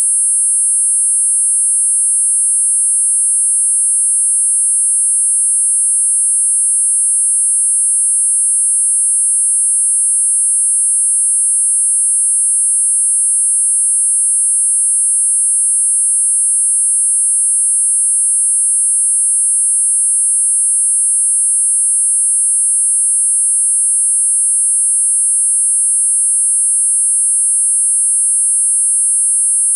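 Four steady high-pitched sine tones sounding together, at 8.5, 9, 10 and 10.5 kHz, as a tinnitus masker. The level stays constant and there is no other sound.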